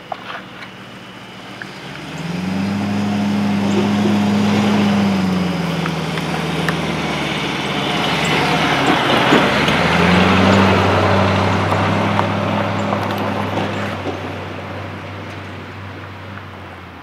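Older square-body pickup brush truck driving past on a sandy dirt road: the engine note climbs, drops back, then climbs again, with tyre and gravel noise that swells as the truck passes, then fades as it drives away.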